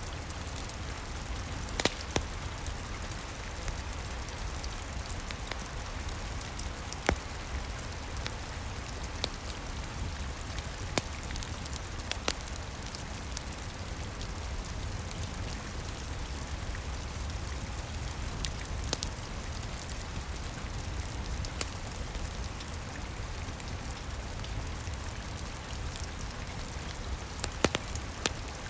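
Steady rain with a low rumble underneath. Scattered sharp pops of a crackling wood fire come every few seconds, the loudest near the start and near the end.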